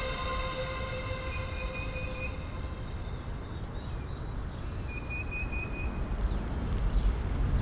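Layered nature ambience: a steady rumbling hiss with a few short high bird chirps scattered through it. A sustained horn-like tone fades out over the first two seconds.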